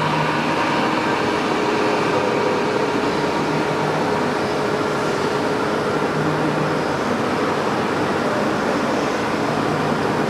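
WMW Niles DP1 facing lathe running under power, a steady mechanical running noise with a few faint held tones.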